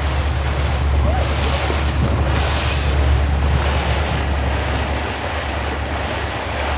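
Wind buffeting the microphone over the rush and splash of water along a moving motorboat's hull: a steady deep rumble with a hiss that swells and fades every second or so.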